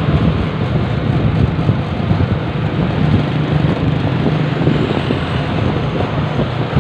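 Road noise from riding along a busy street in an open vehicle: a steady engine hum with wind rushing over the microphone and surrounding traffic.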